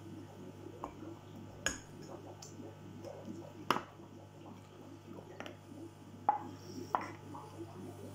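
Light clinks and knocks of a small metal lighter-fuel can being opened and handled against a ceramic egg cup, about half a dozen scattered taps, the sharpest nearly four seconds in, over a faint steady low hum.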